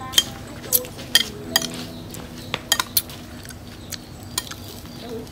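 Metal spoon clinking against a ceramic bowl while tossing shredded green mango: irregular sharp clinks, about a dozen, some in quick pairs.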